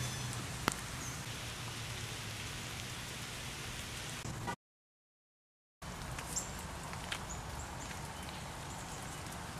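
Rain falling steadily, with scattered sharp drip taps. The sound cuts out completely for about a second past the middle, then resumes.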